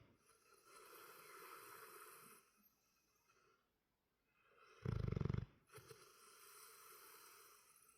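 Snoring in sleep: one short, loud, buzzy snore about five seconds in, with a long breathy out-breath before it and another after it.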